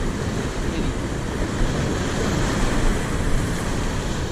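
Steady wash of ocean surf mixed with wind on the microphone.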